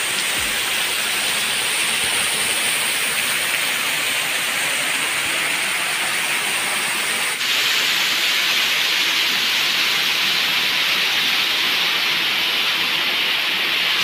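Waterfall: water rushing and pouring over rocks in a steady, dense hiss, stepping up slightly in level about seven seconds in.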